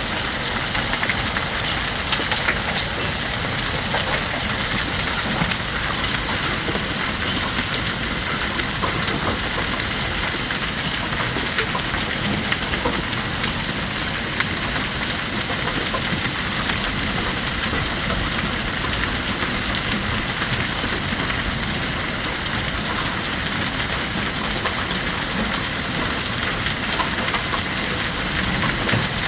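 Heavy rain and hail pelting down: a loud, steady, dense hiss sprinkled with many small sharp impacts.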